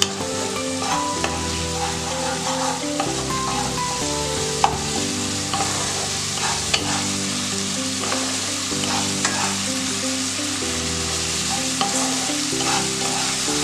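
Spice paste of onion, ginger-garlic, tomato and ground spices frying in oil in a pan, sizzling steadily while it is stirred, with a few sharp clicks of the spatula against the pan. Soft background music with sustained notes plays underneath.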